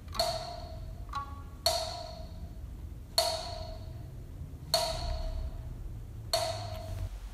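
Struck percussion playing single notes, five main hits about one and a half seconds apart, each ringing briefly at the same pitch, with a smaller higher hit about a second in, over a low steady rumble that stops near the end.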